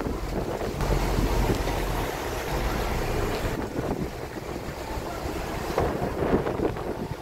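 Wind buffeting the microphone on an excursion boat's open deck, over the low rumble of the boat's engine.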